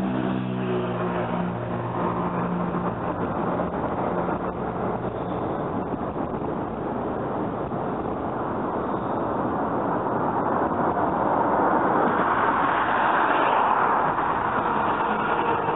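Road traffic passing on an elevated road: one vehicle's engine tone fades away in the first few seconds, traffic noise runs on steadily, and another vehicle comes closer and gets louder near the end.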